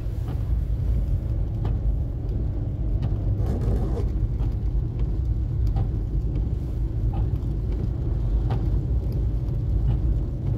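A car driving on a wet road, heard from inside the cabin: a steady low rumble of engine and tyres, with faint ticks every second or so.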